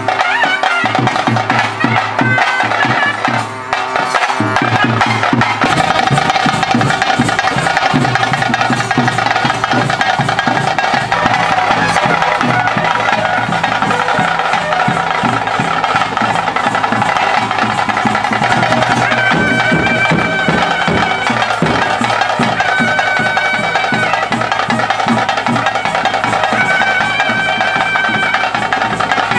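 Traditional music: a reed pipe plays long held notes over a steady drone, with continuous drumming.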